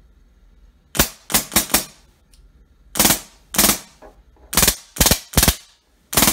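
Valken V12 HPA airsoft engine fired on compressed air on its own, out of the gun: sharp puffs of air, first four in quick succession, then two, then three about half a second apart. The engine is cycling properly after its PIGL airline, QEV and nozzle upgrades.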